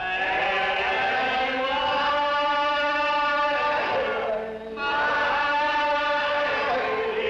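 A church congregation singing a hymn together, unaccompanied, in slow, long-drawn notes. Near the middle there is a brief break before the next long note begins.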